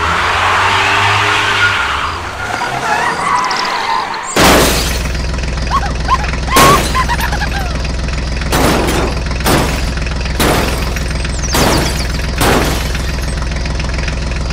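Toy tractor sound effects. For about four seconds there is a hissing spray like a wheel spinning in sand, then a steady engine hum with about half a dozen sharp crash-like hits at irregular intervals.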